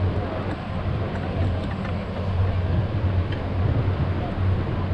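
Indoor sports-hall ambience during a youth football match: a steady low hum and rumble, with a few faint knocks.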